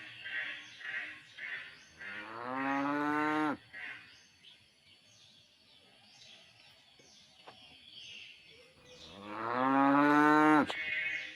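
Two long cow moos about seven seconds apart, each rising in pitch and lasting about a second and a half. A rhythmic high chirping runs in the first second or so.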